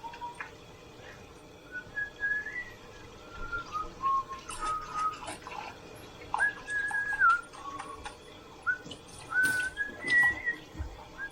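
A thin whistling tone that holds one pitch for a moment, then jumps to another, wandering between low and high notes, with scattered sharp clinks mixed in.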